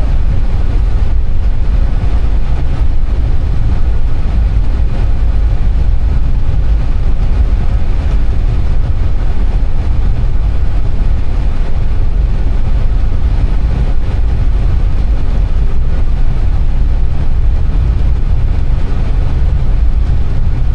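Steady low rumble of an Airbus A320 heard from inside the cockpit as it taxis on the ground.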